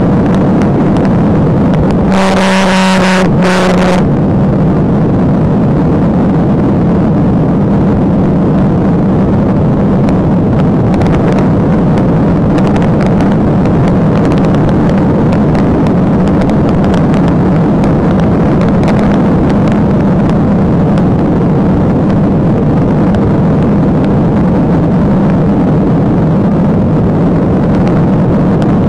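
Steady, loud rush of wind, tyre and engine noise from a patrol car running at about 125 to 137 mph. About two seconds in, a steady pitched tone sounds over it for about two seconds, with a short break in the middle.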